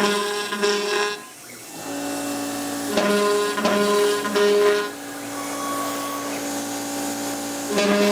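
CNC machine milling an aluminium window-frame profile: a steady motor hum with a pitched whine that comes in short pulses of about half a second, three near the start and three more between about 3 and 5 seconds in.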